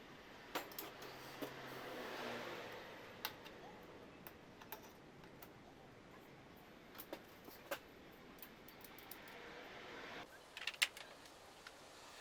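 Spanners and hand tools being handled: faint, irregular light clicks and metallic taps, with a cluster of them near the end.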